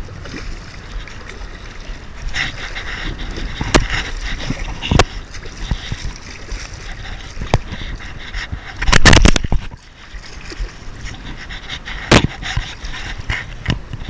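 Shallow water splashing and sloshing as a hooked striped bass is brought to the surface and landed by a wading angler, with sharp knocks and rustles of handling. A louder burst comes about nine seconds in.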